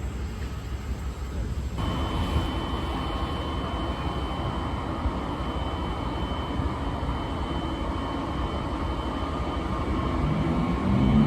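Train running with a steady low rumble; about two seconds in a steady high whine joins, and near the end a louder whine rises in pitch.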